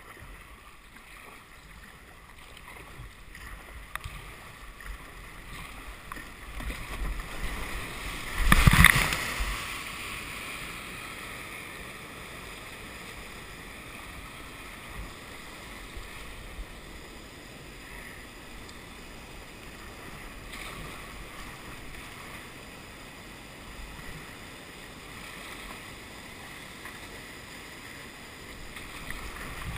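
Kayak paddling downriver: paddle strokes and moving water, with one loud splash about nine seconds in. The steady rush of water pouring over a weir grows a little louder near the end.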